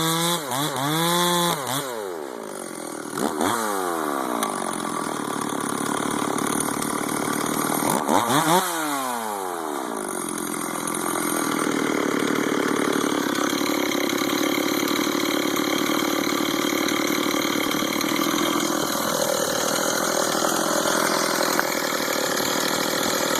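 Stihl 044 two-stroke chainsaw running, its pitch swinging up and down sharply a few times as the throttle is opened and released. From about halfway it runs steadily at high speed.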